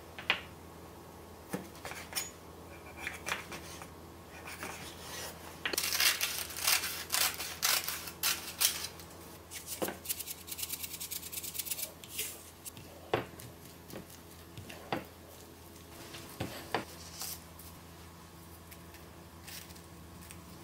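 Kitchen food-prep sounds: scattered clicks and knocks of utensils, with a run of quick, rapid scraping or cutting strokes in the middle.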